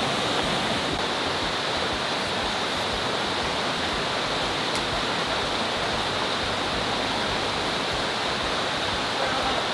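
Waterfall pouring steadily, a constant rushing of falling water.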